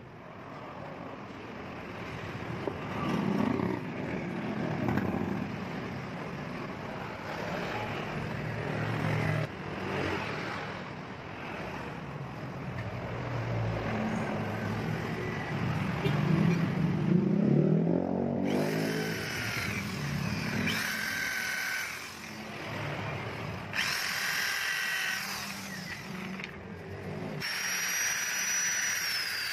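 Handheld electric power tools at work on metal: a lower motor run with pitch that rises and falls through the first half, then several short bursts of high-pitched whining in the second half.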